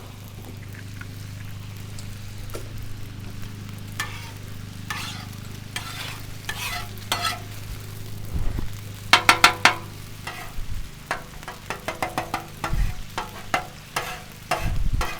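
Bacon and rice sizzling on a Blackstone flat-top griddle, with a steady low hum underneath. From about nine seconds in come quick metal clicks and scrapes of a spatula working on the griddle top.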